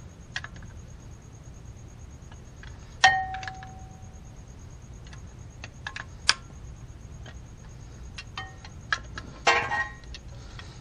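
Metal tools clinking and knocking against a brake caliper while its pistons are being pushed back. There is one loud clang about three seconds in that rings on for about a second, then scattered light clicks and a short rattle near the end.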